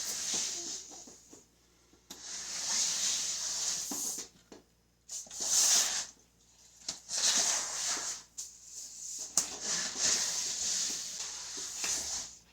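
A broom being pushed across a wet floor: about six long swishing strokes with short pauses between them, sweeping the leftover flood water toward the drain.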